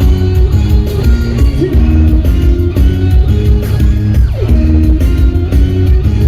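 Loud dance music with a heavy bass beat and a picked guitar melody, with a short falling swoop about four seconds in.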